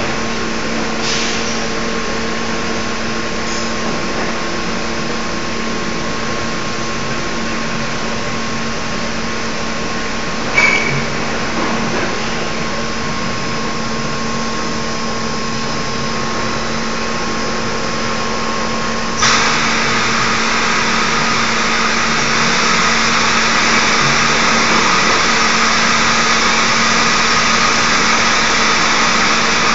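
Automated gluing machine running: a steady mechanical hum from its motors, with one sharp click about ten seconds in. About two-thirds of the way through, a louder hiss joins and keeps going.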